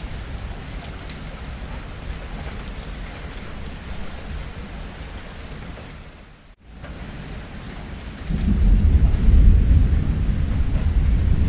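Steady heavy rain with thunder. The sound drops out for an instant about two-thirds of the way in, and soon after a loud, deep thunder rumble swells up and keeps going to the end.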